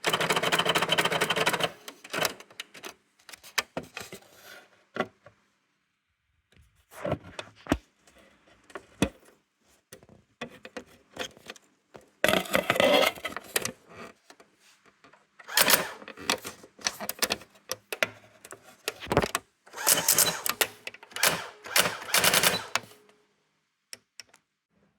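Brother AX-425 electronic typewriter clicking and clattering in about five bursts of rapid mechanical clicks, each one to three seconds long, with pauses between them.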